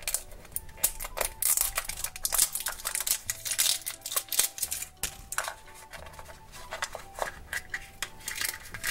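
Crinkling and tearing of a thin plastic wrapper being peeled off a small hard plastic blind-box capsule, with many sharp clicks of fingers and nails on the hard plastic shell as it is squeezed and snapped open.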